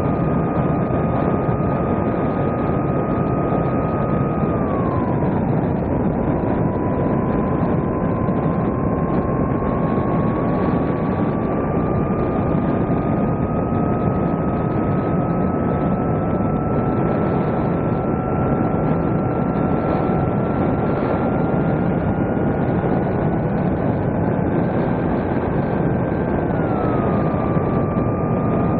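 Electric motor and propeller of a radio-controlled plane running, heard from its onboard camera over steady rushing noise. The motor's whine drops in pitch about five seconds in, slowly rises, then drops again near the end as the throttle changes.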